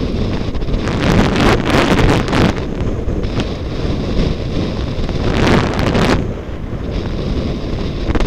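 Wind buffeting the microphone of a helmet-mounted camera during a fast powder-skiing descent, with the hiss of skis cutting through deep snow surging louder twice, about a second in and again near six seconds.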